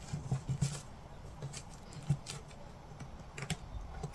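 Scattered light clicks and taps, irregular and unrhythmic, from hands working a diamond painting canvas out of its packaging.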